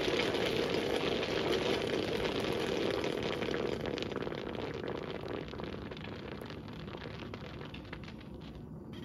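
Water crackling and spattering in a laboratory geyser model, a dense seething hiss that slowly dies away.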